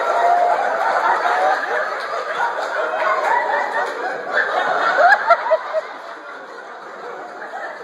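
A theatre audience laughing, many voices at once, dying down near the end.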